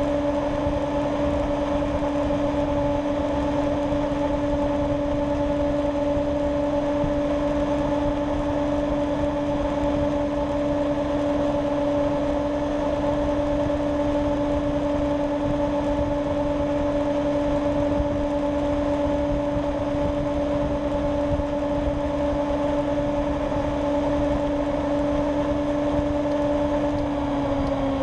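Honda Ruckus scooter engine droning at a steady cruising speed, one held pitch, over a low rush of wind and road noise. About a second before the end the pitch falls as the scooter eases off and slows.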